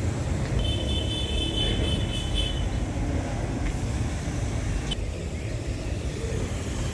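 Steady low outdoor rumble, like background traffic, with a high thin tone lasting about two seconds near the start and a sharp click about five seconds in.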